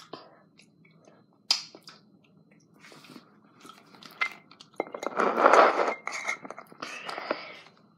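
Chewing and mouth sounds with a few small sharp clicks. About five seconds in comes a louder stretch of rustling and scraping from a hand handling things right up against the microphone.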